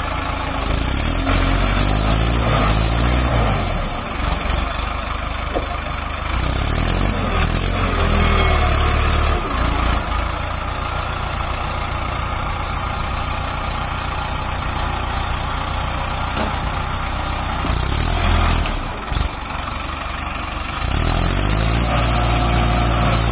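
Mahindra Arjun Ultra-1 555 DI tractor's four-cylinder diesel engine revving up hard several times, with steadier running in between, as it strains with its rear wheels spinning in deep mud. The engine pitch climbs at the start of the louder stretches, and a hiss comes with them.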